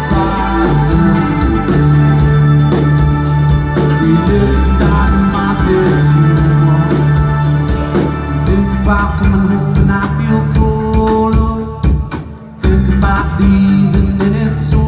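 Live rock band playing an instrumental passage: held organ-like keyboard chords over guitar, bass and drums. The music briefly drops away about twelve seconds in, then the full band comes back in.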